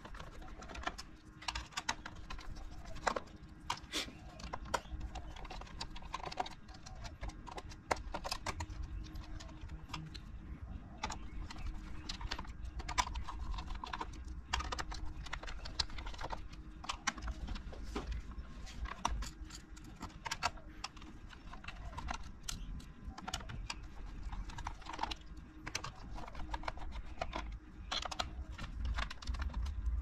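Small screwdriver taking screws out of a Corsair K95 RGB Platinum keyboard's top plate: irregular sharp clicks, taps and scrapes of the tool against the screws and the exposed mechanical key switches, with hands handling the keyboard.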